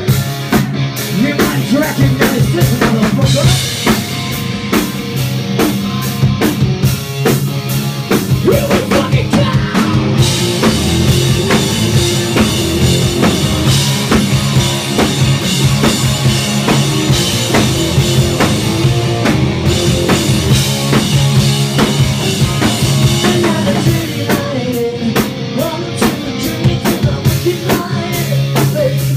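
Rock band playing live: electric guitars and bass over a driving drum kit, loud and steady.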